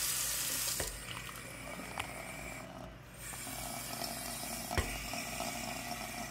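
Water running from a single-handle bathroom sink faucet into the basin. The stream eases about a second in as the handle is pushed down but never stops, because the faucet's cartridge is bad and won't shut the water off. A few sharp clicks come through, the loudest near the end.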